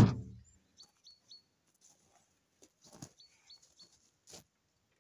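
A loud metal clank with a short ringing tail at the start, then two softer knocks, from steel tools on the forwarder's wheel nuts as they are snugged up. Small birds chirp between them, in two runs of three short high chirps.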